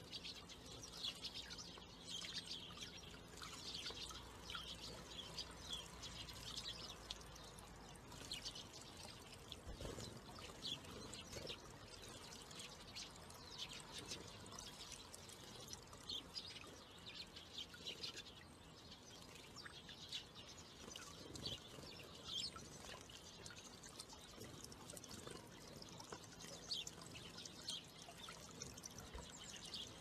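Water trickling steadily from a small spout into a stone birdbath, with frequent short chirps and twitters of small birds throughout.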